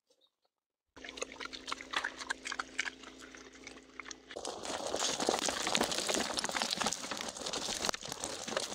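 Pig eating mash from a feed bowl: clicky chewing over a steady low hum at first, then from about four seconds in, louder and noisier chewing that cuts off abruptly.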